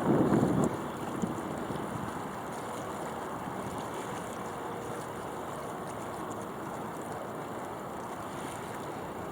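Wind buffeting the microphone of a mast-mounted camera on a small sailboat: a louder gust for the first moment, then a steady rushing hiss.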